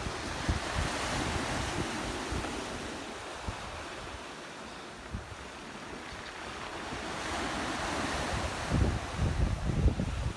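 Small sea waves breaking and washing onto a beach, a steady hiss of surf that swells and eases. Wind buffets the microphone in low, uneven gusts, strongest near the end.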